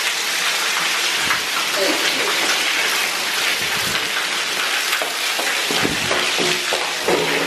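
Water running steadily through a concrete drainage tunnel: a continuous rushing hiss. Faint voices come in near the end.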